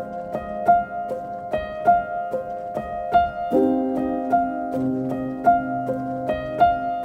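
Background instrumental music: a steady run of soft, piano-like plucked notes over held chords, the lower chord shifting about halfway through.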